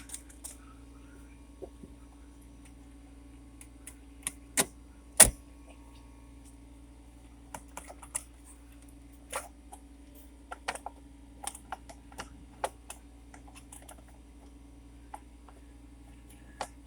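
Scattered sharp clicks and taps of hand work on car parts that are being pried apart, the loudest about five seconds in, over a steady low hum.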